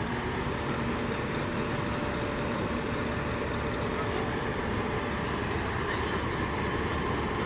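Heavy diesel engine of a P&H crawler piling rig running steadily as the machine manoeuvres on its tracks, with a faint steady whine.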